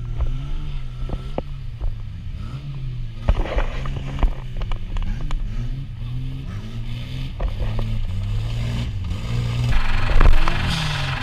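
Off-road 4x4 vehicle engine revving up and down unevenly under load, with scattered knocks and scrapes, and louder near the end.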